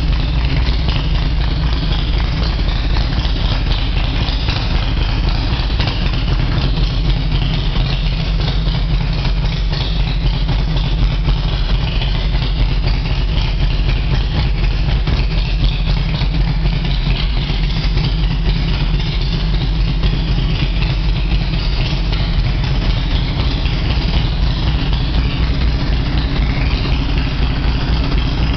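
Harley-Davidson Road King's air-cooled V-twin engine idling steadily, never revved.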